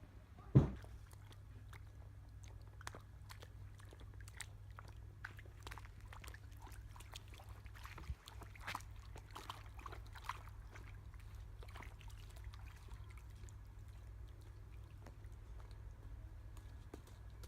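A child's boots splashing and squelching through rain puddles: scattered small splashes and clicks, with one sharp thump about half a second in, over a steady low rumble.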